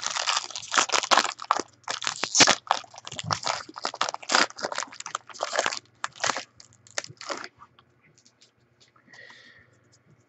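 Crinkling, tearing packaging of a trading-card pack being opened by hand: dense crackle for about seven seconds, then only a few faint handling clicks.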